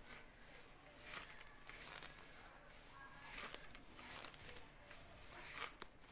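Foam-padded leg and thigh exerciser being worked in quick repetitions, giving a series of short rubbing, scraping sounds, roughly one every second.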